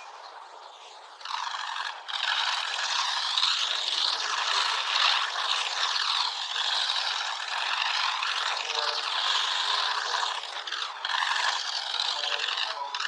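A dense barrage of press photographers' camera shutters clicking rapidly, so many that they run together into a crackling rattle. It starts about a second in and gets louder about two seconds in.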